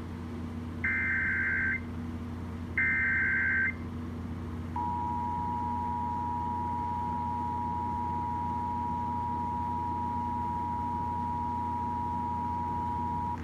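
Emergency Alert System signal for a tornado warning, heard over FM radio: the last two of the three SAME header data bursts, each a harsh digital warble lasting about a second, then, about five seconds in, the steady two-tone EAS attention signal held to the end.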